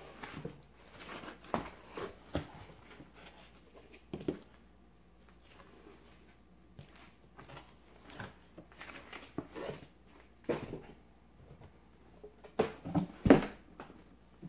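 Packaging being handled by hand: a foam insert and cardboard box lifted, shifted and set down, and a cloth laptop sleeve rustling, as a string of irregular knocks and scrapes. A cluster of louder knocks comes near the end.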